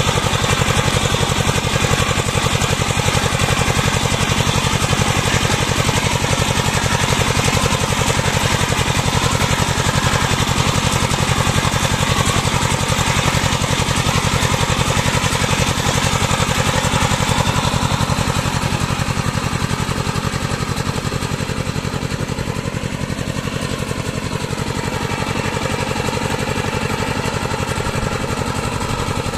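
Single-cylinder diesel engine of a two-wheel power tiller running steadily under load as its cage wheels pull through paddy mud to level it. It is a little fainter in the second half.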